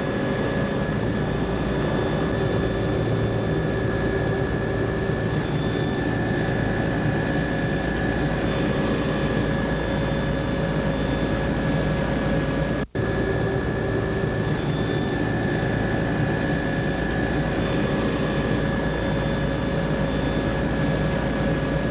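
Steady drone of a low-flying survey aircraft's engine, heard from inside the cabin, with several steady tones held throughout. The sound cuts out for an instant about halfway through.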